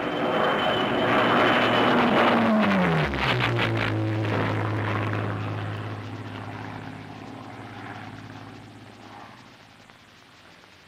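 Spitfire fighter's engine passing by on an old film soundtrack played through a loudspeaker. The engine noise swells, drops sharply in pitch as the aircraft passes about two to three seconds in, then settles into a steady drone that fades away.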